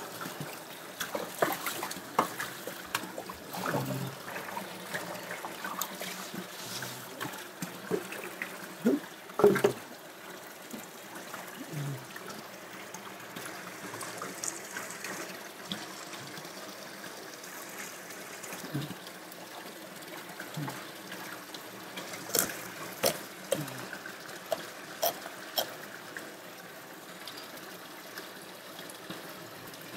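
Tap water running steadily into a plastic bowl of ice water, with scattered sharp knocks and clicks from a knife and hands working a carp on a wooden cutting board.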